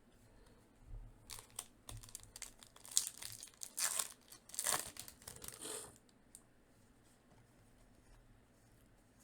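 A trading-card pack wrapper being torn open and crumpled, a few seconds of rustling and crackling that is loudest near the middle and stops about two-thirds of the way through.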